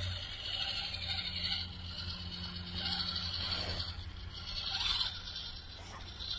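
Electric motor and gear drivetrain of a 1/18-scale RC4WD Gelande crawler whining at low crawling speed under a 1080 crawler ESC, with the tyres scraping over dry dirt as it climbs.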